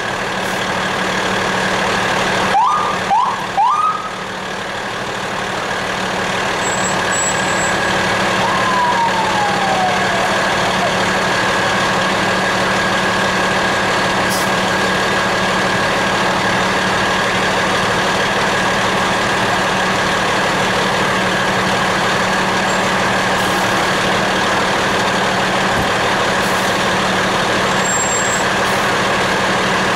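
Steady engine and cab noise of a fire truck rolling slowly, heard from inside the cab, with three short rising siren whoops about three seconds in and a single tone sliding down a few seconds later.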